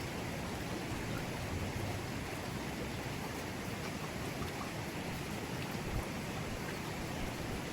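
Forest river flowing over rocks, a steady rush of water.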